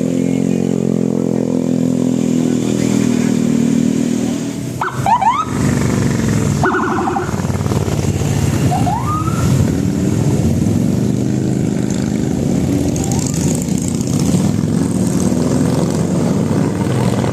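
Large bus diesel engine running steadily, with a few short rising tones about five and nine seconds in.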